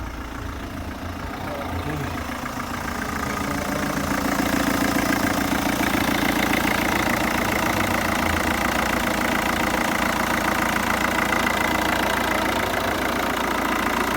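Vauxhall Astra 1.7 turbo diesel engine idling, running again after its starter motor has been replaced. It grows louder a few seconds in, then holds steady.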